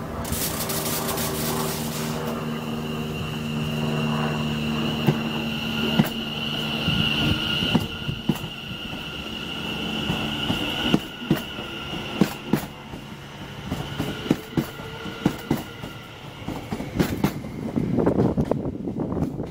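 c2c Class 720 Aventra electric multiple unit pulling out and gathering speed past the platform. A high steady whine and a low hum for the first half, then wheels clicking over rail joints in quickening pairs, with a rush of air near the end as the last carriage goes by.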